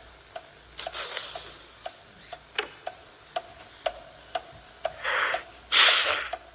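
Grandfather clock ticking steadily, about two ticks a second. Two louder breathy hisses come near the end.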